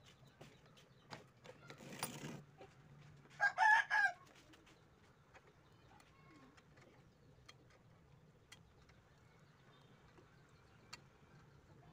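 A single short bird call, under a second long, about three and a half seconds in, over a faint low hum and scattered small clicks.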